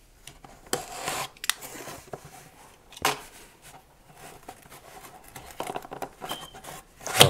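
Tape being cut and pulled off a cardboard box: irregular scraping, tearing and sharp clicks, with a sharp click about three seconds in and a louder burst at the end.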